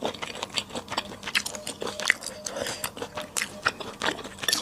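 Close-miked eating: quick, wet chewing and biting, a dense run of short sharp mouth clicks several times a second.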